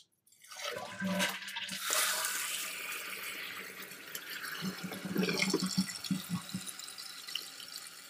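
Toilet flushing through a newly fitted rubber hinge flapper. Water rushes out of the tank, loudest in the first couple of seconds, then keeps running steadily as the tank refills.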